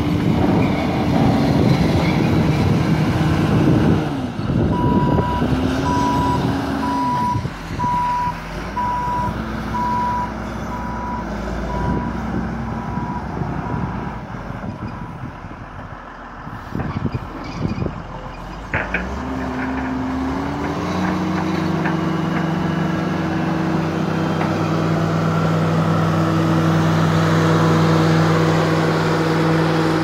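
Wheel loader with a snow-plow blade, its diesel engine running under work while a reversing alarm beeps about once a second for several seconds and fades out. About twenty seconds in, the engine revs up and then runs steadily at the higher speed.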